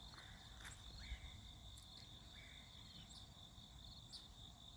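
Near silence with faint, steady high-pitched insect chirring and a few faint short ticks.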